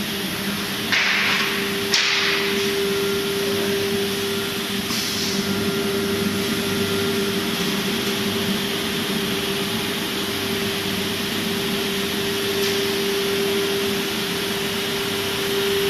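ATC CNC router running: a steady whine over a constant machine noise, with two short bursts of hiss about one and two seconds in.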